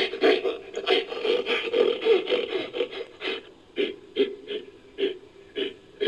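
Made-up Megaladapis creature call mixed from gorilla and bear recordings: a run of short, pulsing grunts, about three a second at first, then spacing out and getting quieter.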